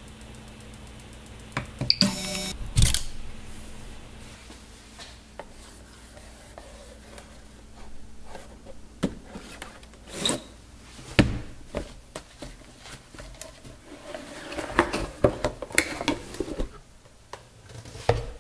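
Handling noises: scattered sharp clicks and knocks and rustling of cardboard filament boxes being taken from a shelf, over a low steady hum during the first few seconds.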